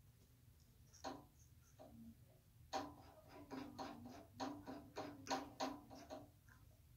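Faint light clicks and knocks from hands working a drill press chuck that holds a Sharpie against a wooden cap. There is a single click about a second in, then an uneven run of quicker clicks, roughly three a second, from about three seconds in to about six.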